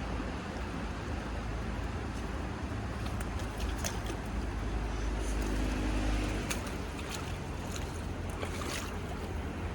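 Steady rush of a flowing stream, with wind rumbling on the microphone and a few faint clicks.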